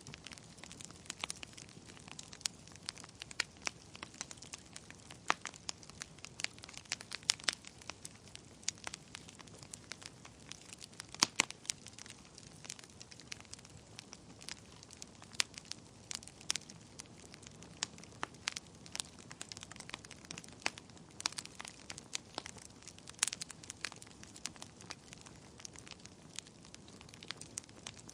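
Wood fire burning in a fireplace, crackling and popping irregularly over a faint low hiss, with a few sharper pops standing out.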